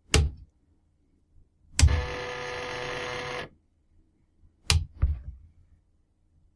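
A floppy drive's stepper motor, driven by an Arduino, buzzing with a steady pitched tone for about a second and a half, starting with a sharp click. Single sharp clicks come just before it and a pair of clicks near the end.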